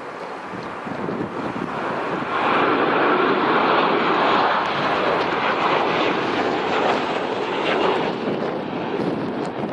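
Engines of a Boeing 737-800 on final approach with gear down, a jet whine and rush that swells about two and a half seconds in as the airliner passes low and close, then stays loud.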